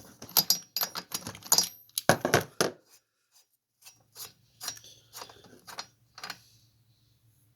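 Metal tools and parts clinking and clattering: a run of sharp, irregular knocks, some with a brief metallic ring, dense in the first three seconds and thinning out, stopping a little after six seconds.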